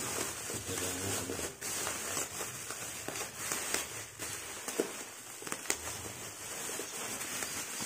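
Bubble wrap crinkling, with scattered small clicks and light taps as clear acrylic protein skimmer parts are handled.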